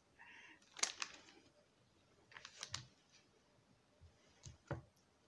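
Glossy paper stickers being handled and shuffled between the fingers: quiet rustling with a few sharp little clicks, about a second in, near three seconds, and twice near the end.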